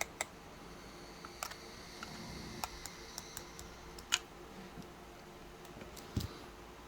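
Scattered light clicks and taps of small plastic parts being handled, with a sharper click about four seconds in and a soft knock about six seconds in.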